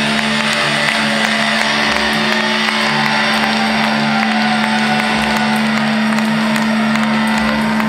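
A steady low note held from the stage amplification, with a pulsing hum beneath it, between songs at a live metal concert. Over it the crowd is cheering and clapping.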